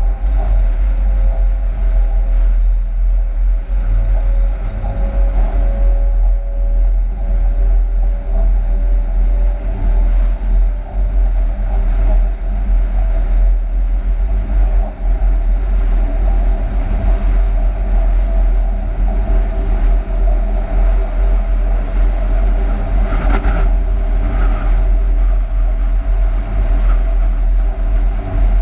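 Driver's cab of a Bombardier TRAXX class 186 electric locomotive running light: a steady low rumble with the whine of its traction electrics, one tone falling slightly in pitch in the first few seconds. A short clatter of brighter noise comes about three-quarters of the way through.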